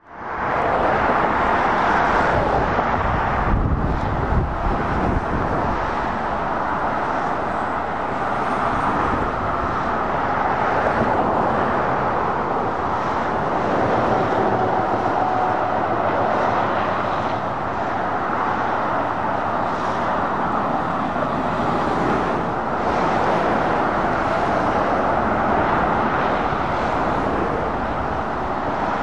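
Steady road traffic of lorries and cars passing on a dual carriageway: a continuous wash of tyre and engine noise that swells and eases slightly as vehicles go by, fading in at the very start.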